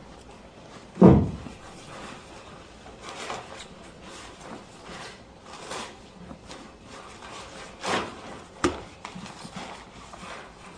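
Rubbing and rustling handling sounds, with a heavy low thump about a second in and two more knocks later on.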